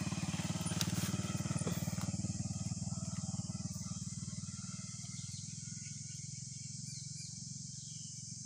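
An engine running nearby, a low rapid putter that is loudest about a second in and slowly fades. A steady high insect drone runs underneath.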